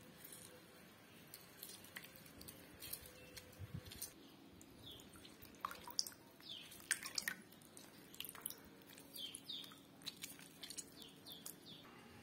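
Lemon juice dripping and trickling into a bowl of spiced pani puri water as a cut lemon is squeezed by hand, in many small plinks and clicks that come thicker from about four seconds in.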